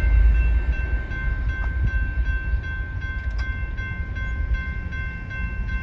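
Freight train of covered hopper cars rolling away, its low rumble slowly fading, with a few faint clicks from the wheels on the rails. A steady high ringing tone runs over it.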